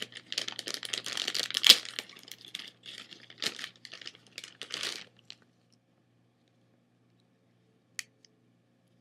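Packaging crinkling and rustling as it is handled and unwrapped, for about five seconds, loudest about two seconds in, then stopping. A single sharp click about a second before the end.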